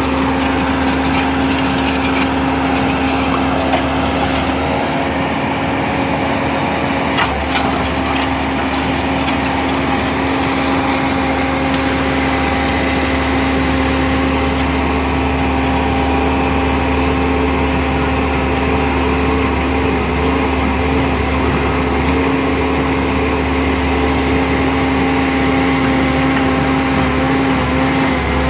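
JCB 155 skid steer loader's diesel engine running at a steady, unchanging speed while it drives an auger attachment, with a couple of brief knocks about four and seven seconds in.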